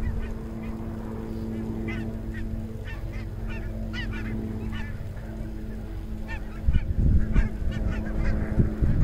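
A flock of geese honking repeatedly, in two bursts of calls. Under the calls runs a steady low engine drone, and low rumbles of wind hit the microphone in the last couple of seconds.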